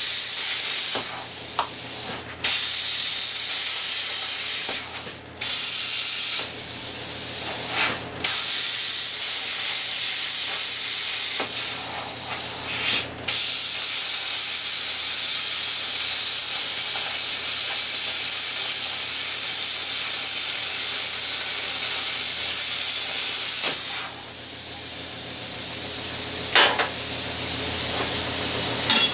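Hand plasma cutter cutting steel plate: a loud, steady hiss of the arc and air jet, broken by a few brief gaps where the cut stops and restarts.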